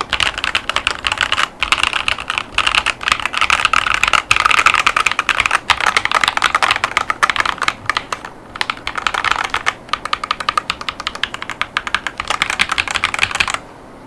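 Fast typing on a Keychron V1 mechanical keyboard with Gateron Baby Kangaroo tactile switches and ABS OEM-profile keycaps: a dense run of keystroke clacks with a few brief pauses, stopping shortly before the end.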